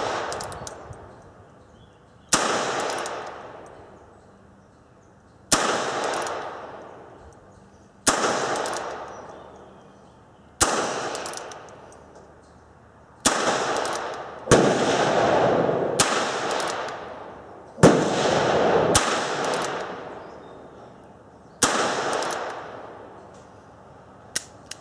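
About ten handgun shots fired one at a time, a few seconds apart, each a sharp crack that echoes off for a second or two under a covered range roof.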